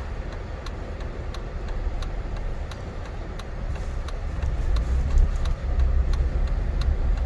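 Car driving, heard from inside the cabin: a steady low rumble of engine and road noise, with a light regular ticking about twice a second.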